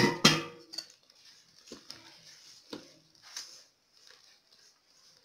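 Metal spoon clinking and scraping against a stainless steel stand-mixer bowl while stirring flour and water into a loose dough. Two sharp clinks in the first half second, then softer scrapes and taps about once a second.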